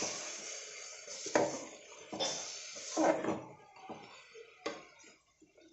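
Metal spoon stirring green tomato curry in an aluminium pot, scraping and knocking against the pot's sides and base in several separate strokes.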